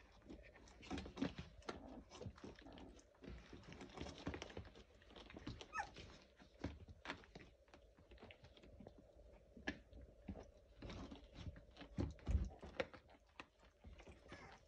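Eighteen-day-old Labrador puppies moving about on a puppy pad, with many scattered small clicks and scratches, a brief squeak about six seconds in, and a louder low thump a little after twelve seconds.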